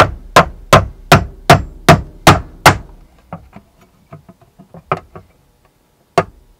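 A small hammer tapping a roll pin punch to drive the extractor roll pin out of a 9mm AR-15 bolt. About eight quick, evenly spaced sharp taps come in the first three seconds, then a few lighter clicks, then one more sharp tap near the end.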